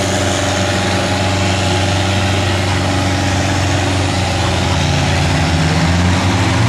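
Off-road 4x4 competition vehicle's engine running steadily, rising in pitch about five seconds in as it is revved.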